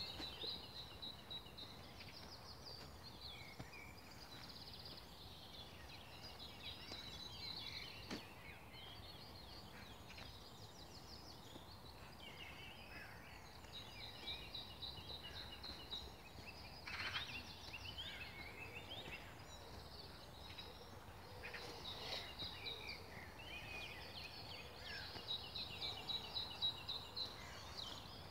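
Several songbirds singing in a spring morning chorus: repeated rapid trills and varied chirps overlapping one another, over a low steady background noise.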